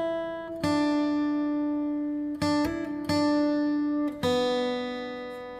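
Background music: slow acoustic guitar notes, each picked and left to ring out and fade.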